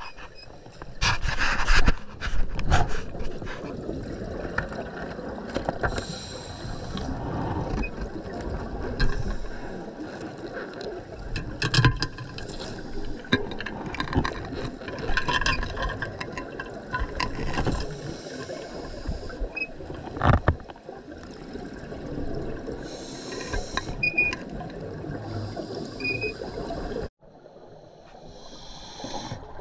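Scuba diver's open-circuit regulator breathing underwater: hissing inhalations and repeated surges of exhaled bubbles rushing past the camera, with a few sharp knocks. The sound cuts out abruptly for a moment near the end.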